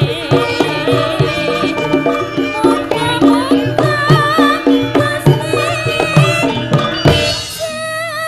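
Javanese gamelan music: kendang hand-drum strokes keep a steady beat under struck metal keys, while a sinden (female solo singer) sings into a microphone with a wavering vibrato.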